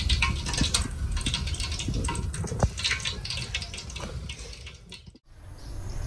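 Hot frying oil crackling and sizzling, a dense patter of small pops over a low steady rumble, fading away and cutting off about five seconds in.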